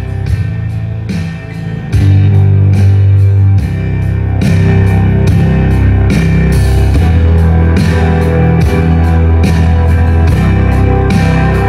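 Rock music with guitar and a steady drum beat, played through a Monoprice stereo hybrid tube amplifier and its speakers from a phone over Bluetooth. It gets louder about two seconds in, with heavy bass notes.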